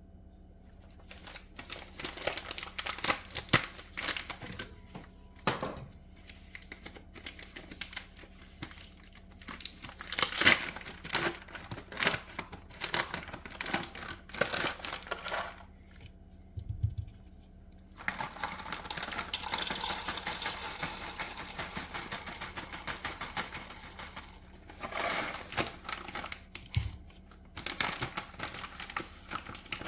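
Small objects being handled: a run of clicks, light clatters and rustling, with a steady rushing hiss for about six seconds past the middle.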